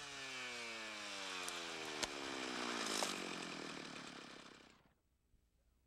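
Two-stroke brush saw engine winding down from cutting speed, its pitch falling steadily as the throttle is released. A rising rush of branches and a sharp crack about two seconds in come from the tree falling. The sound fades out near silence about five seconds in.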